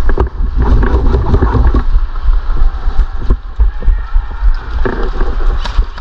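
Body-worn camera jostled as the player moves, giving heavy low thumping and rumble from footsteps and handling, with scattered sharp clicks of airsoft guns firing.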